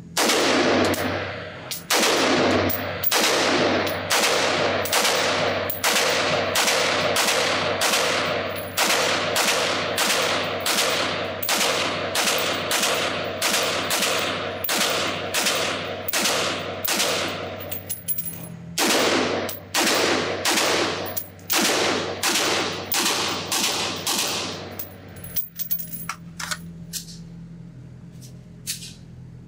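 Sig Sauer MCX-Spear LT 5.56 pistol with an 11.5-inch barrel firing a long string of single semi-automatic shots, a little more than one a second, in an echoing indoor range. There is a short break about 18 seconds in, and the firing stops about 25 seconds in, followed by a few faint clicks.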